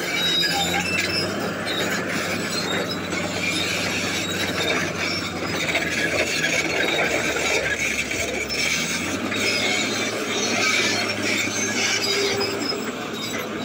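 Caterpillar D8T crawler dozer working: its diesel engine runs steadily under load while the steel tracks squeal, clank and grind over rock. The low engine note shifts slightly about eight seconds in.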